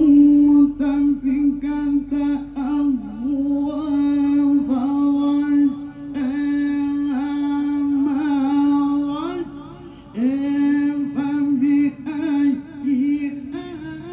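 A man reciting the Quran in the melodic tilawah style into a microphone over a PA, holding long notes on one pitch with wavering ornamental turns, and breaking off briefly twice, about six and ten seconds in.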